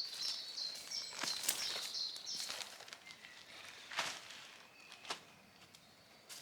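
Scattered rustles and light clicks of camping gear being handled on the woodland floor, with a rapid high chirping running through the first two and a half seconds.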